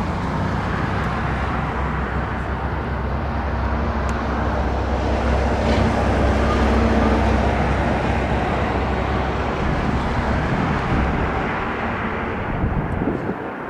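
Jet engines of an Airbus A350-1000, Rolls-Royce Trent XWB-97s, rumbling on the landing roll. The deep rumble grows to a peak about halfway through, then eases off near the end.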